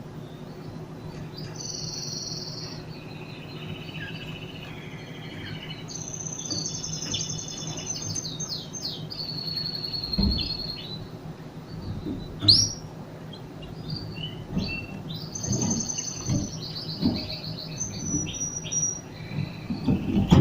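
Canaries chirping and singing in rapid, high trills with repeated notes, over a low steady hum, with a few dull knocks in the second half.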